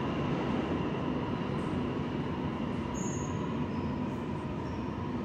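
New York City subway train running through the station: a steady rumble of wheels on rail with faint high whining tones over it.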